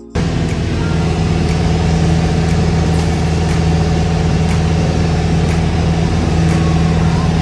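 Single-engine light airplane's engine and propeller running steadily in flight, a loud, even drone heard inside the cabin.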